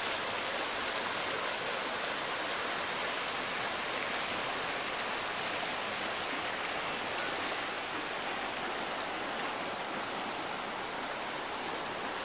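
A rocky mountain river rushing over stones, a steady, even sound.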